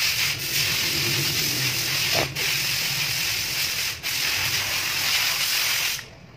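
A steady, loud hiss with brief dips about two and four seconds in, cutting off suddenly near the end.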